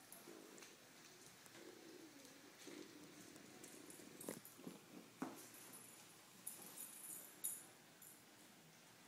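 Faint, low grunting from a Lhasa apso humping a roll pillow, with two soft knocks about halfway through and some light fabric rustling.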